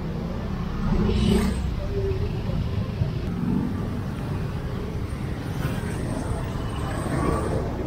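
Street traffic: motorcycle and motorcycle-tricycle engines running past on a busy road, a steady low rumble that swells about a second in as one passes close.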